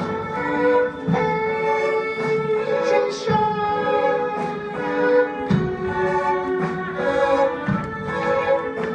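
Symphony orchestra playing, with bowed strings to the fore in held, layered notes, and a sharp low accent about every two seconds.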